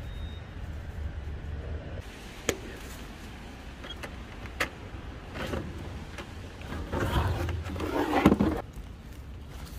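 A plastic pet carrier being handled while a stray cat is caught in it: two sharp clicks, then rustling and scraping that is loudest near the end. A low hum runs underneath and stops about two seconds in.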